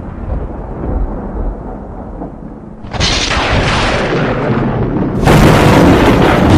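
Lightning and thunder sound effect: a low rumble dies down, then a sudden loud crack about three seconds in, and an even louder crash of thunder about five seconds in that keeps rumbling.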